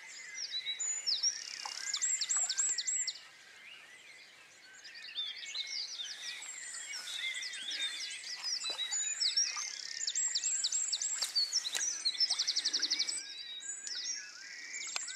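Dawn chorus: several songbirds singing at once, with fast trills and repeated whistled phrases. The singing eases off for a moment a few seconds in, then picks up again.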